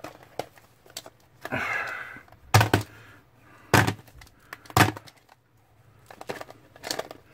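Clear hard-plastic cases of Travan tape cartridges clacking as they are picked up and knocked together: a few sharp plastic clicks about a second apart, with softer handling rustle and small ticks around them.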